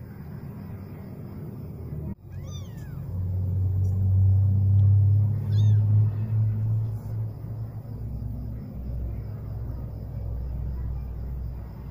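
Very young kitten mewing twice, short high cries about two and a half and five and a half seconds in, over a steady low rumble that is loudest in the middle.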